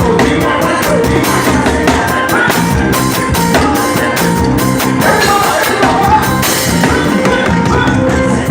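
Brazilian carnival bloco band playing: loud, driving drums and percussion with singing over them.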